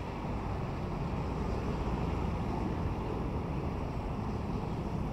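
Steady road traffic noise with wind rumbling on the microphone.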